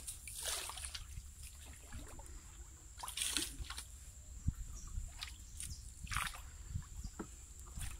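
Wooden paddle stroking through still canal water beside a small boat: a splash and slosh about every three seconds, with water dripping and trickling between strokes.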